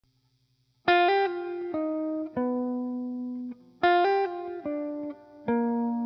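Background music: a short guitar phrase of a few plucked notes that ring and fade, starting about a second in and played again just before four seconds.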